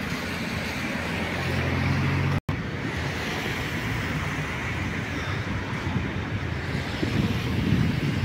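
An electric multiple-unit passenger train running along the line, a steady rumble of wheels on rails that swells near the end. It is preceded by a couple of seconds of steady running noise with a low hum that breaks off abruptly.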